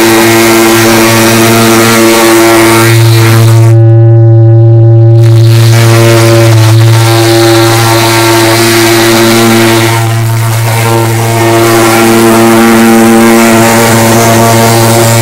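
Portable pulse-jet thermal fogging machine running while it blows insecticide fog, with a loud, steady buzzing drone.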